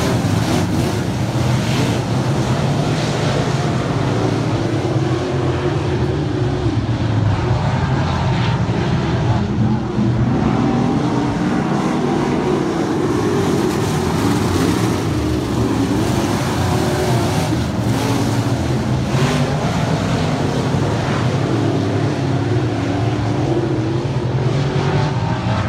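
A field of dirt-track race cars running laps together, several engines droning at once and rising and falling in pitch as the cars circle the oval.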